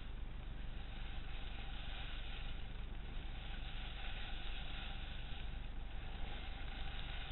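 Steady rushing noise of wind over a moving skier's camera microphone, mixed with skis sliding on snow, with gentle swells as the turns go by.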